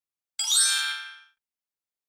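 Bright chime sound effect: a quick rising run of bell-like tones that starts about a third of a second in and rings out, fading within about a second.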